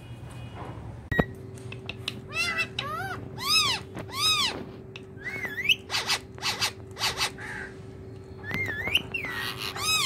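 Indian ringneck parrot calling. A run of arching calls rises and falls in pitch, followed by harsh, rasping squawks and short rising whistles.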